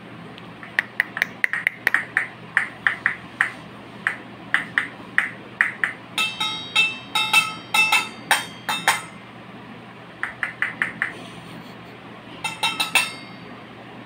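Small toy bell held in a rose-ringed parakeet's beak, shaken so that it rings in several bursts of quick clinks; the loudest, most ringing burst comes about halfway through.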